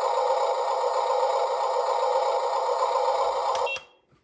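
Huina 1582 RC dump truck's built-in sound module playing a simulated engine running through its small speaker: a steady, thin rattle with no bass, which cuts off abruptly with a click near the end.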